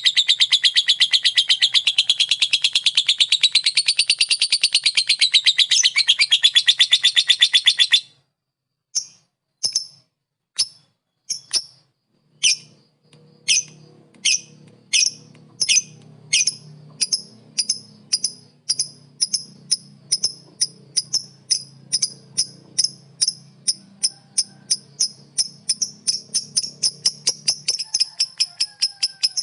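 Lovebird ngekek: a long, very rapid run of shrill chattering notes that breaks off about eight seconds in. After a short pause, single sharp chirps start slowly and quicken steadily to several a second, running back into the rapid chatter near the end.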